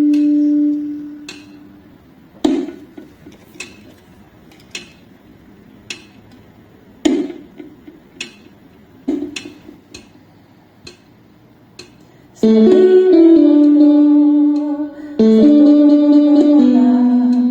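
Slow pop-ballad accompaniment with a woman's voice. A held sung note fades out about a second in, then sparse single plucked-string notes, guitar-like, ring out one at a time for about ten seconds. Near the end the woman's voice comes back in with held notes.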